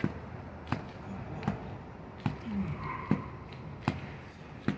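Boxing-glove punches thudding into padding, about one every 0.8 s, seven strikes in a steady rhythm.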